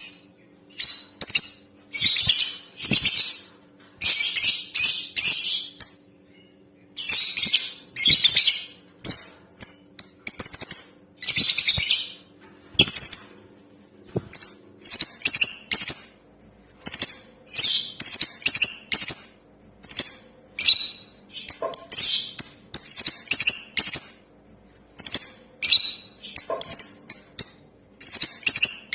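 Female lovebird calling in shrill, chattering bursts, each up to a second or two long, repeated with short gaps, over a faint steady hum.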